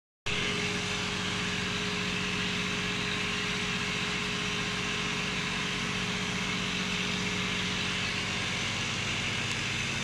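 A steady mechanical hum, like a small motor running, with a low drone and an even hiss that do not change.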